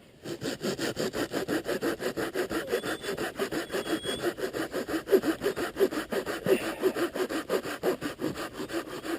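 Bahco Laplander folding pruning saw cutting through a piece of wood with rapid, even back-and-forth strokes that start just after the beginning and keep going.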